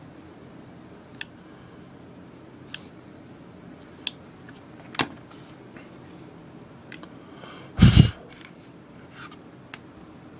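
Handling noise at a soldering bench: a few single sharp clicks and taps spread a second or so apart, then one louder, heavier bump about eight seconds in, with faint ticks after it.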